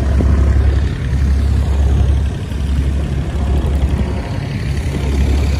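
Engine of a wooden passenger boat running steadily under way: a loud low drone that swells and eases, under a rush of noise.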